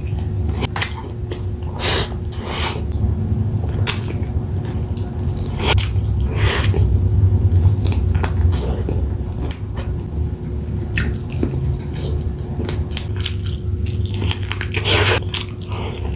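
Close-miked eating sounds: a mouth chewing and biting food, with many short wet clicks and smacks, over a steady low hum.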